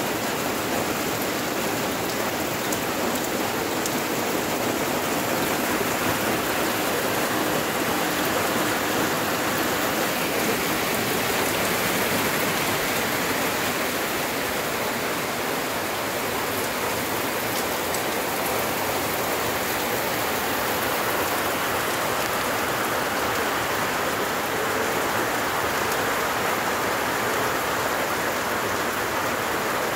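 Heavy typhoon rain pouring steadily on roofs and a wet concrete yard, an even, unbroken hiss of rain.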